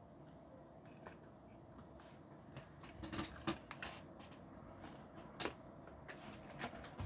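Faint rustling and a few sharp crackles from a plastic popcorn bag and popcorn being handled, mostly about three to four seconds in and once more past five seconds.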